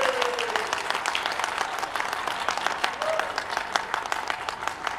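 Audience applauding: many individual hand claps, heard distinctly and thinning slightly toward the end, with a brief voice about three seconds in.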